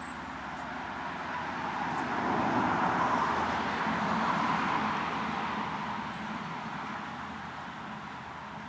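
A vehicle passing by: a steady rushing noise that swells over a few seconds, peaks midway and fades away again.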